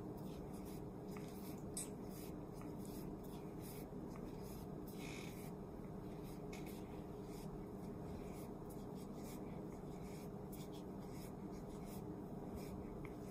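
Faint rustling and scratching of hands plaiting yarn braid extensions into hair, with many soft clicks scattered throughout over a steady low hum.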